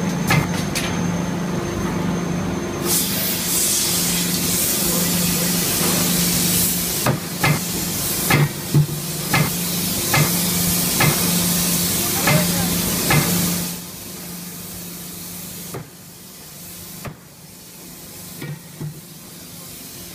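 Hot-forging press line running: a steady machine hum, and for about ten seconds a loud hiss of air or spray with sharp metallic clanks every half second or so. About two-thirds of the way through the hiss stops, leaving a quieter hum with a few scattered knocks.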